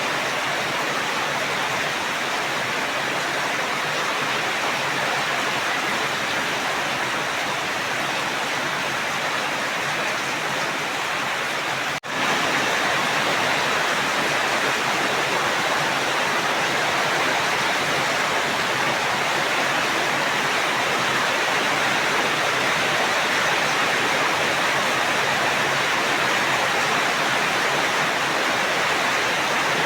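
Steady rain, an even unbroken hiss, with a momentary dropout about twelve seconds in, after which it comes back slightly louder.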